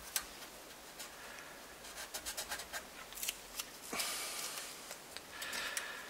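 Small clicks, ticks and scratching from fingers handling an amplifier circuit board and its component leads, with a short rustle about four seconds in.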